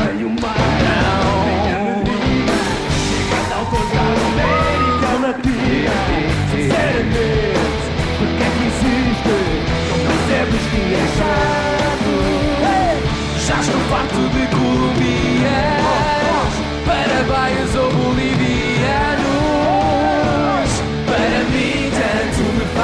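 A rock song played live by a band with drum kit, cymbals and electric bass, with several men singing in Portuguese.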